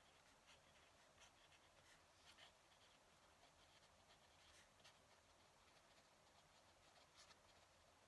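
Faint scratching of a fountain pen nib on paper during handwriting, in short, irregular strokes.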